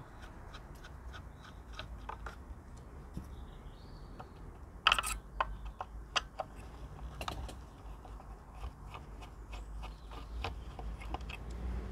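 Small irregular clicks and ticks as a screwdriver turns out the four screws holding the unit inside a plastic door-mirror housing, with a louder clatter about five seconds in. A low rumble runs underneath.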